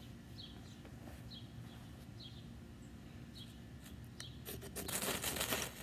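A knife spine is scraped hard down a ferrocerium rod in one rasping stroke lasting about a second, near the end, throwing sparks to light fatwood shavings. A bird chirps briefly about once a second throughout.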